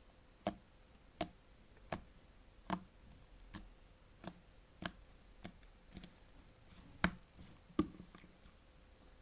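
Green slime made with vaseline being pressed and stretched by hand, giving sharp clicking pops about every three-quarters of a second, the loudest about seven seconds in.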